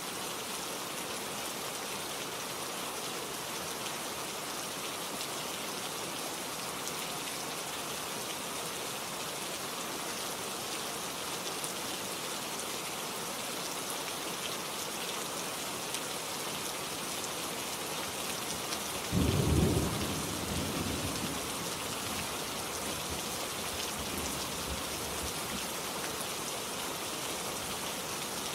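Steady rain falling and pattering on leaves, with a single low crack of thunder about two-thirds of the way through that rumbles away over a couple of seconds.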